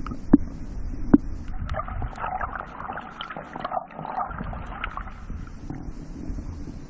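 Muffled underwater sound picked up by a submerged camera: a steady low rumble of moving water, two sharp knocks in the first second or so, then a few seconds of crackling.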